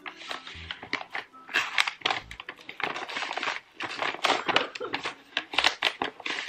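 Brown paper padded envelopes and spiral-bound booklets rustling and crinkling as the booklets are handled and pushed into the envelopes, with a few soft knocks against the desk.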